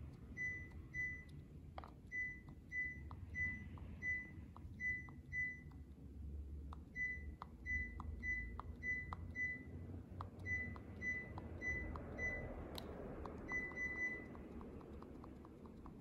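Sharp room air conditioner beeping once in acknowledgement of each remote-control button press, short high beeps in quick series with a faint click of the remote's button before each, then a quick run of three beeps near the end.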